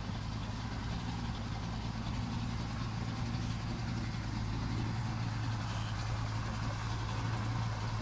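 Yamaha 50 hp two-stroke outboard motor idling steadily at about 1100 rpm.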